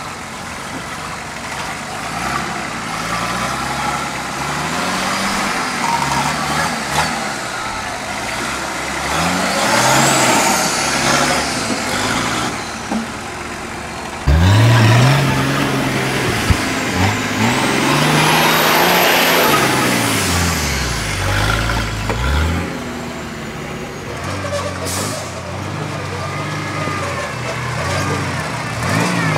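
Engines of modified 4x4 trial vehicles revving up and down as they crawl over rock, the pitch rising and falling again and again. About halfway through the sound jumps suddenly louder and the engine revs harder for several seconds, then settles back to lower, steadier revs.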